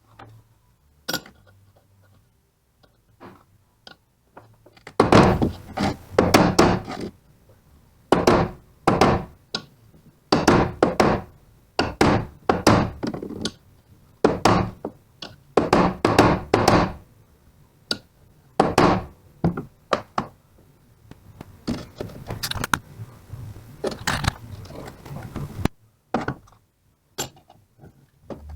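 Repeated sharp knocking blows on the parts of a car alternator being dismantled for a bearing change. The blows come in quick runs of several strokes with short pauses between.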